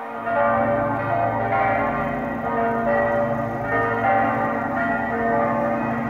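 Church bells ringing together, several bells struck over and over, their long tones overlapping, growing louder just after the start.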